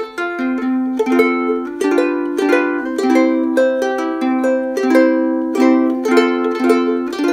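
Kiwaya ukulele played in a picked melody, about three to four notes a second, each note ringing on briefly. It is heard through a Rode VideoMic Pro shotgun mic plugged into an iPhone 7 Plus.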